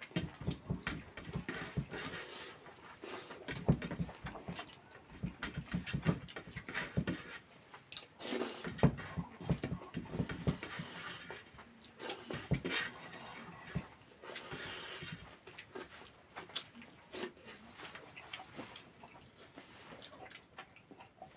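Eating sounds: chewing and wet mouth smacks, a string of irregular short clicks and crunches from the eater's mouth.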